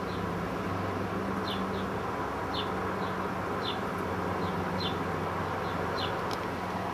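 Steady electric hum from a mains-powered slot machine over a low hiss, with a short high chirp repeating about once a second.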